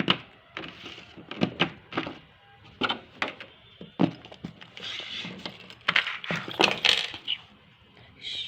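Packaging being handled and opened: irregular sharp clicks and taps with short bursts of rustling.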